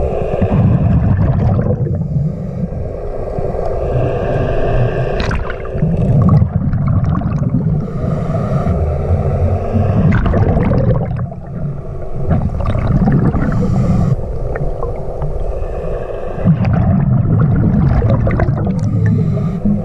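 Scuba diver breathing through a regulator underwater: a hissing inhale with a faint whistle, then an exhale of rumbling, gurgling bubbles, about every four seconds, five breaths in all.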